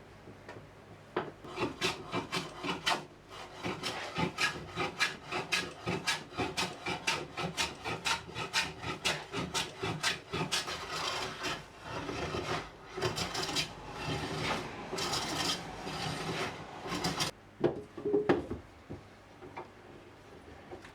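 Hand tool worked rapidly back and forth on wood, about three strokes a second for some fifteen seconds, then a few separate knocks near the end.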